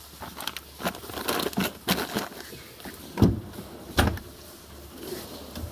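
Steel drawers of a Snap-on Master Series toolbox locker being shut and pulled open: a run of clattering clicks and rattling parts, with two louder knocks about three and four seconds in.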